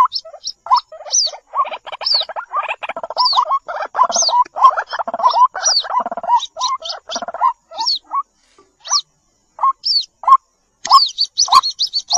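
White-breasted waterhen chicks calling: fast, irregular series of short peeping notes that bend up in pitch, with thinner, higher notes above them, and two short breaks in the second half.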